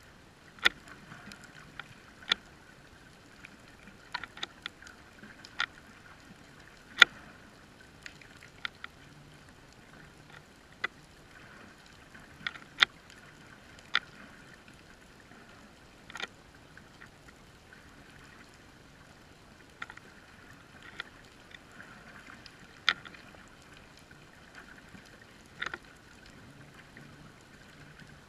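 Underwater sound picked up by a GoPro in its housing: a steady faint hiss with sharp, irregularly spaced clicks, roughly one every one to two seconds, some much louder than others.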